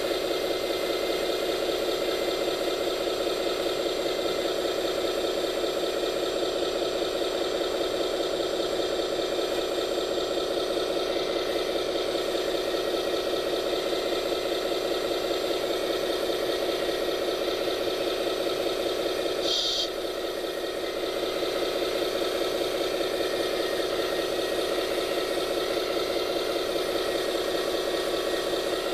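Radio-controlled scale construction machine running with a steady mechanical whine and rattle. About two-thirds of the way through there is a short high click and the sound briefly drops.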